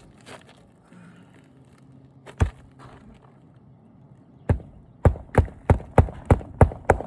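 Hammer driving a nail into the roof: two separate strikes a couple of seconds apart, then a quick, even run of about seven blows, roughly three a second.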